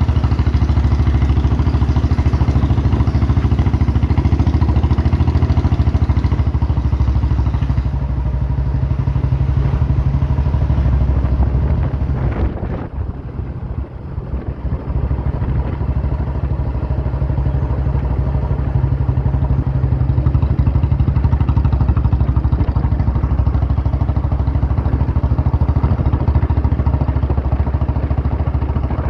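Old Royal Enfield Bullet's single-cylinder engine thumping steadily under way. About halfway through it eases off briefly, then pulls steadily again.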